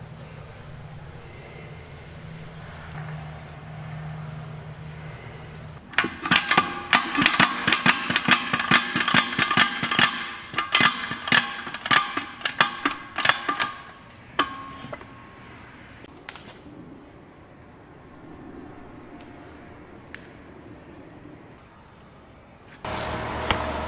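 Rapid metallic clanks with a ringing tone, about four a second for some eight seconds, from hand tools working on a steel truck tyre and wheel, with two single clanks after. A low steady hum before and after.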